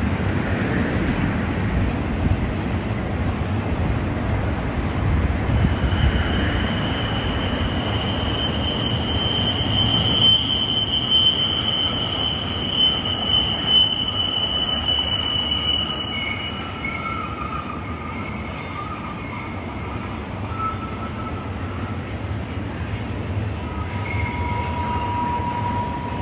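Double-stack intermodal freight train rolling past on a curve, its well cars making a steady rumble of wheels on rail. Wheel flanges squeal against the curved rail: a long high squeal in the middle, then shorter, lower squeals near the end.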